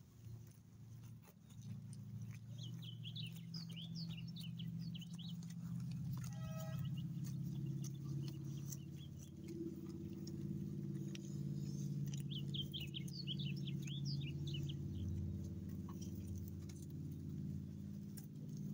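Dog chewing prickly pear fruit, with faint crunches over a steady low hum. Bursts of bird twittering come twice, and a short pitched call sounds about six seconds in.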